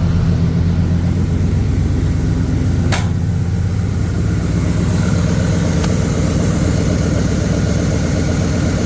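1976 Jeep J10 engine idling steadily with the air conditioning running, and one sharp click about three seconds in.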